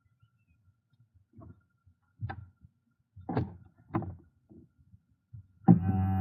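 A handful of irregular dull knocks and thuds, a second or so apart. About a second before the end, background music starts with a loud held chord.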